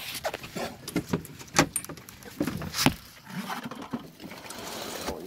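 Handling noise from a phone camera pressed against clothing: fabric rustling on the microphone with irregular sharp knocks and clicks, most of them in the first few seconds.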